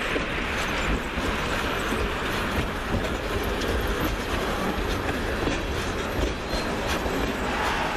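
Freight train's tank cars rolling past, steel wheels knocking and clicking over the rail joints in a steady clatter.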